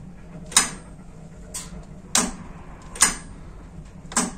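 Sharp clicks, five at irregular intervals with the second one fainter, as the bus's lighting circuits are switched on and off while being tested.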